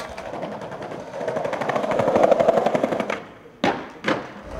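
Skateboard wheels rolling fast over cobblestone paving with a rapid clatter that grows louder as the board approaches, then goes quiet about three seconds in as the board leaves the ground. Two sharp impacts follow about half a second apart as the board and the skater's feet come down.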